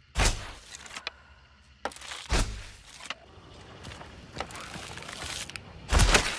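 Hunting bow being shot three times: each release is a sharp, sudden thump, the first two about two seconds apart and the third near the end.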